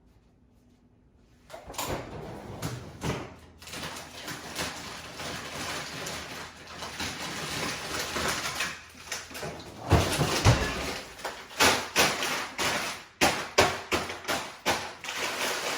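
Crinkling and rustling of a plastic bag of frozen meatballs being handled and opened, starting about a second and a half in, with a few heavy knocks about ten seconds in.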